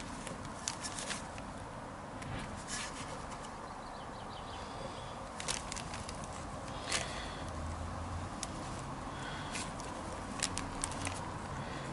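Scattered small clicks and scrapes of hands working a rubber dust boot onto the push rod of a metal clutch master cylinder, over a steady background hiss.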